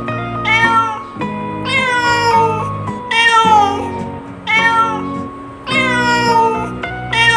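A domestic cat meowing over and over, about six meows spaced roughly a second and a half apart, each falling in pitch at its end, over background music with steady held notes.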